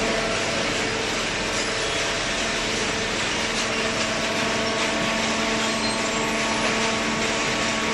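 Hydraulic cardboard baler's motor and pump running steadily, a constant hum over a broad hiss.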